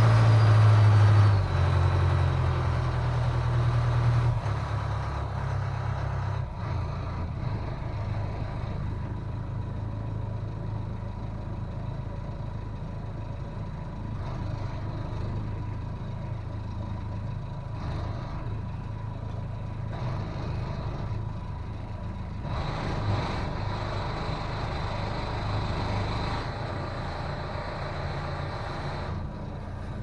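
Small boat's engine running hard at speed, with water rushing past. It is throttled back a few seconds in, then runs slow and low as the boat comes up to a sailboat.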